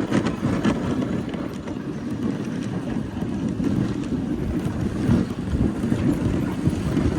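Wind buffeting the microphone: a steady, low, rumbling rush.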